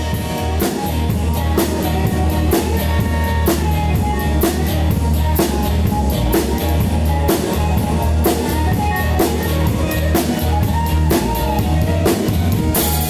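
Band music with a drum kit playing a steady beat, cymbal and snare strikes prominent over bass and guitar.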